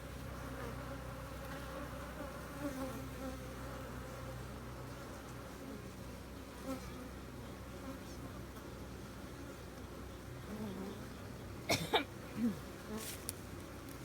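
Honeybees buzzing around an opened hive, a steady many-voiced drone. A few sharp knocks and clicks come near the end.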